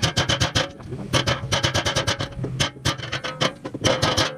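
Rapid hammer blows on a thick steel car skid plate being beaten straight, coming in quick bursts of several strikes a second with a metallic ring.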